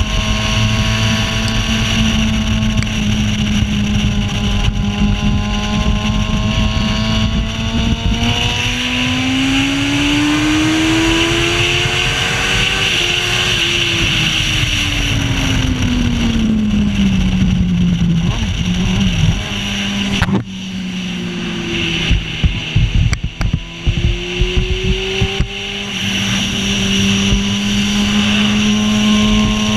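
Sidecar racing outfit's engine running hard at track speed, heard onboard over rushing wind. The note climbs as it accelerates, then falls away as it slows. About two-thirds of the way through there is a stretch of irregular crackles and knocks before the engine note settles again.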